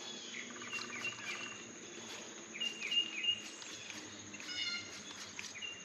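Faint outdoor ambience: birds chirping in short, repeated calls, some falling in pitch, over a steady high insect drone.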